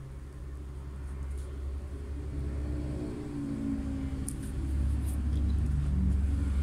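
Low engine rumble of a motor vehicle, growing steadily louder, with a wavering pitch in the middle. A couple of faint clicks come about four and five seconds in.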